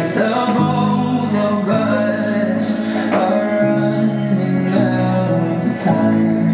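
Music: held instrumental notes that shift pitch about once a second, with a sharp struck accent three times.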